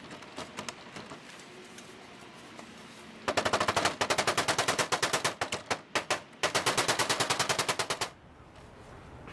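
Hammer tapping rapidly on a small metal screw or pin in a steel lock plate, about ten light strikes a second, in two runs with a short break partway through.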